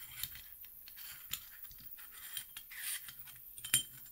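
Small metal clicks and scrapes of a metal telescope adapter ring being taken apart by hand, its bolts turned and the parts rubbing together, with a sharper click near the end.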